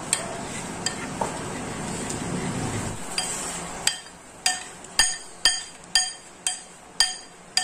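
A spoon stirring runny chocolate icing in a bowl, dissolving the powdered sugar. It scrapes steadily at first; about three seconds in it turns to regular clinks against the bowl, about two a second.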